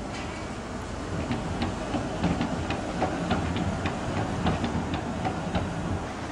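Articulated tram passing, its wheels clacking over rail joints: a run of sharp, irregular clacks, about three or four a second, from about a second in until near the end, over a low rumble.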